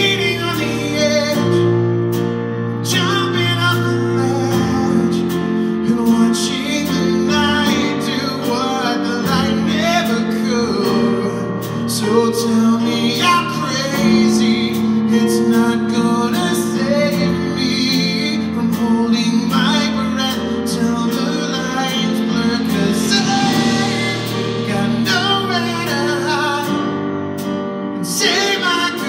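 Live acoustic band performance: a male lead vocal sung close into a microphone over strummed acoustic guitar, with the band playing along.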